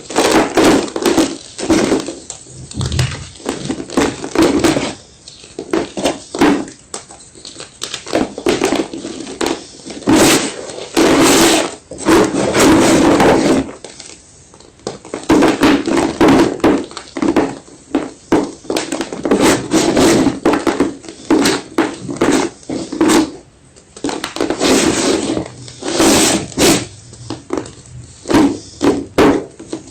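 White gym chalk being crunched and crushed, in repeated bursts of dense crackling crunches with short pauses between.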